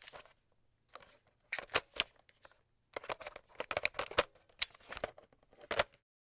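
A scatter of short, sharp clicks and ticks at an uneven pace, pausing briefly about two and a half seconds in and stopping just before the end.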